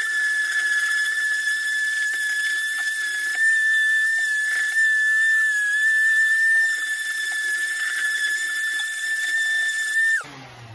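Electric random orbital sander running with a steady high whine as it sands a wooden axe handle to 220 grit. It shuts off about ten seconds in, and the whine drops away.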